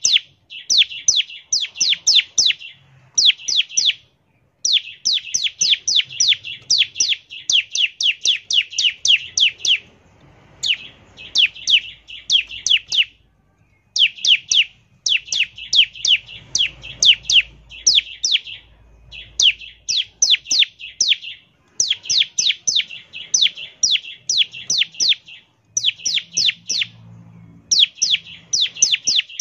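Bar-winged prinia (ciblek) singing its rapid 'ngebren' song: runs of quick, sharp, high notes repeated about five a second, in phrases of one to several seconds with short pauses between them.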